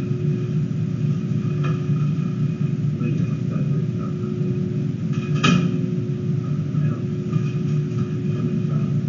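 Steady low rumble of room machinery with a constant hum, and a single sharp click about five and a half seconds in.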